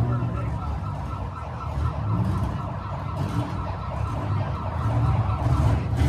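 Six-cylinder demolition derby cars' engines running, a low rumble, with a thin high-pitched pulsing tone over it for the first few seconds.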